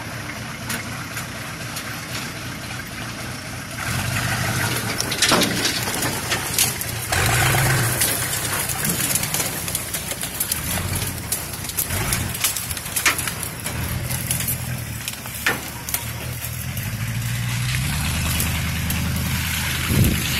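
Chevy pickup truck's engine running under load off-road, revving up and down in surges. It gets louder about four seconds in and rises again near the end, with sharp snaps of branches and brush throughout.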